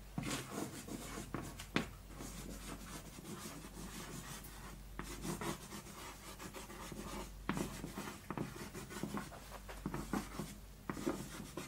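Chalk writing on a blackboard: an irregular run of short scratching strokes with a few sharper taps as words are written out.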